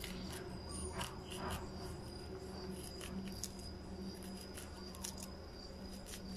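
Small knife slicing kernels off a fresh corn cob: a scattered run of short, crisp cuts and clicks. A steady high-pitched hum runs behind it.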